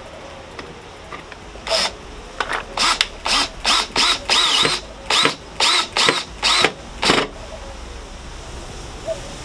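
Makita cordless drill driving a screw into a loudspeaker cabinet panel in a quick series of about a dozen short trigger bursts, each a brief motor whine, over about five seconds. It then stops.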